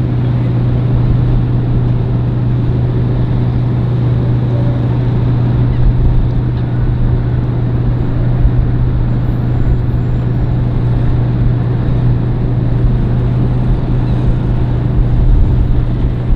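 An engine running steadily: a low, even hum with a steady noise over it.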